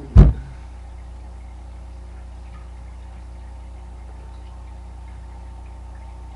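One loud, sharp thump just after the start, then a steady low electrical hum with a faint fixed whine above it.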